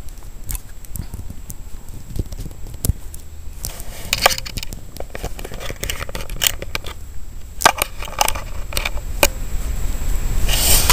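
Handling noise close to the microphone: irregular clicks and rubbing over a low rumble, with a louder rustle near the end.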